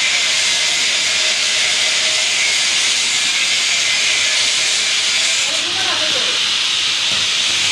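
A loud, steady hiss that holds an even level throughout, with faint voices in the background about six seconds in.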